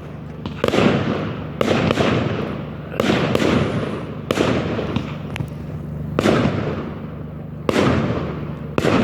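Aerial firework shells bursting one after another: about seven sharp bangs, roughly a second or so apart, each trailing off in a rumble that dies away over about a second.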